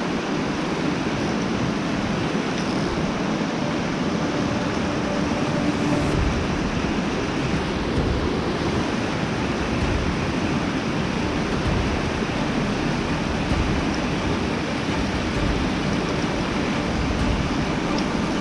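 Steady rushing of shallow creek water running over a rocky riffle, with a low rumble underneath.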